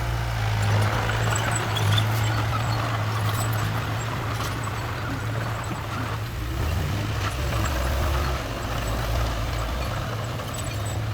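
Heavy construction machinery's diesel engine running steadily with a low hum, its note shifting a little about two-thirds of the way through.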